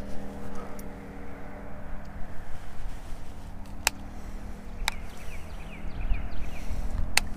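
A steady low hum, like a distant motor running, over a wind rumble on the microphone. Three sharp clicks come as the baitcasting reel is handled, the loudest near the end.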